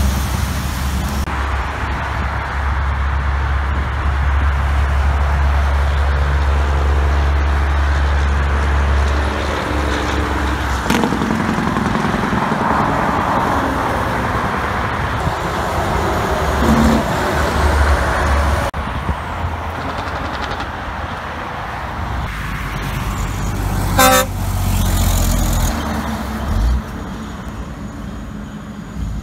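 Heavy diesel trucks, a semi tractor and dump trucks, running on their engine compression brakes (Jake brakes): a loud, low, rapid rattle with road traffic underneath. The sound changes abruptly several times as one truck gives way to the next. About 24 seconds in there is a brief sharp blast.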